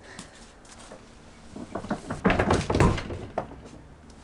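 A run of knocks and heavy thuds about halfway through, the sound of bulky things being handled and set down close by.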